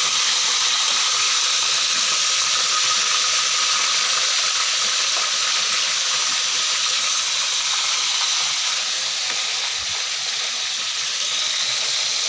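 Whole gourami fish frying in hot oil: a steady, even sizzle.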